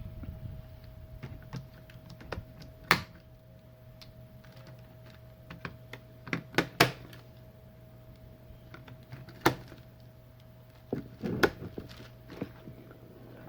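Scattered sharp clicks and knocks of AA batteries and the plastic controller housing being handled as batteries are fitted into the battery holder, over a steady low electrical hum.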